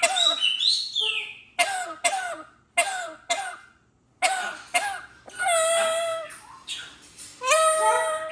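Pet bird giving a run of short, raspy calls that sound like coughing, followed by two longer, steadier calls near the end. The cough-like sound is a normal vocalisation from a healthy bird, not a sign of illness.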